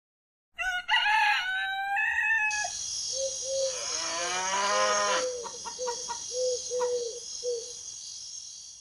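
Farmyard sounds: a rooster crows about half a second in, then a cow moos while a hen clucks over and over in short notes. A steady high chirr runs underneath from a few seconds in.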